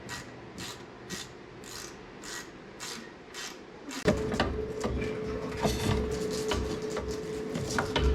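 Shop hand-tool work: a scraping or rasping stroke repeated about twice a second for the first few seconds. Then, about four seconds in, a steady hum starts along with scattered clicks and knocks of metal parts.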